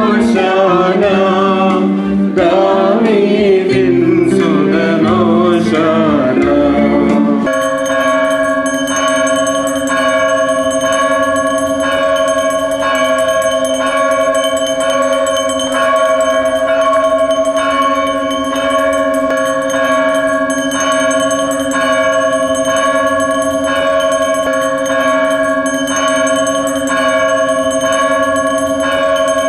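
Group singing a hymn with music, broken off abruptly about seven seconds in by a church bell ringing on and on, its strokes coming in an even rhythm with a steady ring.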